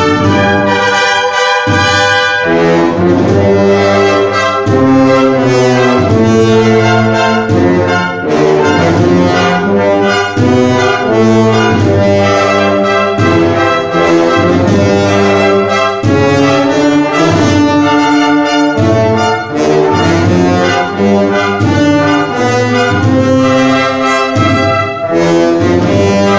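Brass ensemble playing a piece in full, held chords that change every second or so.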